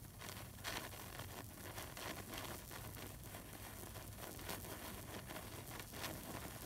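Senko hanabi (Japanese hand-held sparkler) burning, with faint, irregular crackling as its glowing bead forms and throws sparks.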